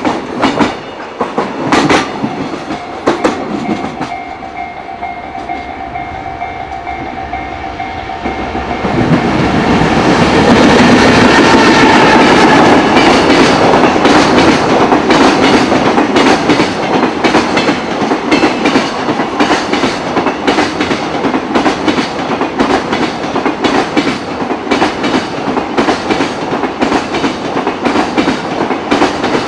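Container freight train hauled by an EF210 electric locomotive passing close by, its wagons' wheels clattering over the rail joints in a fast, steady rhythm. It is quieter at first and gets much louder about nine seconds in as the train reaches the microphone.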